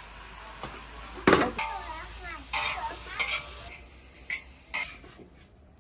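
A metal spatula scraping and clanking in an iron wok as leafy greens are stir-fried with a light sizzle. Several sharp knocks, the loudest about a second in.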